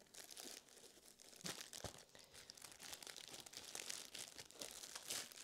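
Faint crinkling and rustling of a plastic bag and foil wrapping as a block of soaked floral foam is pushed down into a small box, with a couple of soft knocks about a second and a half in.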